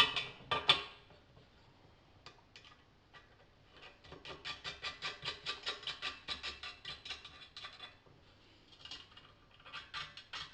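Small metal parts clinking as nuts and bolts are fitted to the exhaust blow kit's adjustable clamps: two sharp clicks at the start, then a quick, even run of ticks, about five a second, for several seconds, and a few more clinks near the end.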